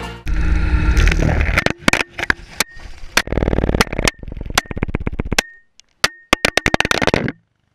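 Action camera clattering and scraping as it tumbles along an asphalt road: a rapid, irregular string of hard knocks with a dense grinding rattle in the middle and brief moments where the sound cuts out, stopping suddenly a little before the end.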